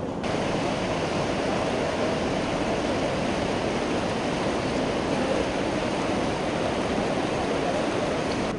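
Floodwater rushing in a steady torrent, a constant broad wash of water noise that starts abruptly just after the beginning.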